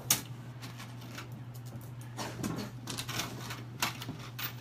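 Irregular small metallic clicks and clinks of bolts and nuts being handled and fitted through the flange of a fiberglass case mold to bolt its two halves together, over a steady low hum.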